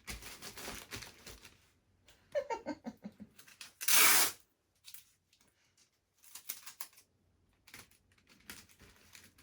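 Plastic parcel bag crinkling as it is handled, then sticky tape pulled off the roll with one loud, short rip about four seconds in, followed by a few lighter rustles and taps.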